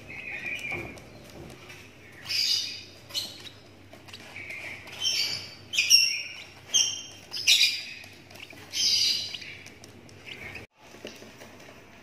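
A 17-day-old lovebird chick calling: about eight short, high chirping calls in quick succession, most of them between about two and ten seconds in.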